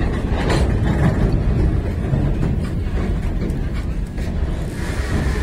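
Loaded open freight wagons rolling past close by: a steady low rumble of steel wheels on rail, with scattered clicks and clanks, and a hiss coming in near the end.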